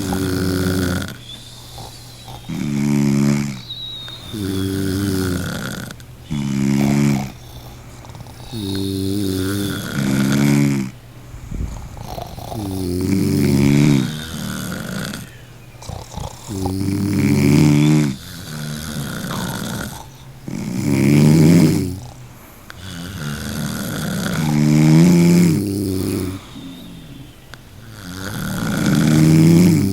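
A person snoring with a rough, rattling snore about every two seconds. Each snore swells and then drops away, with quieter breathing between them.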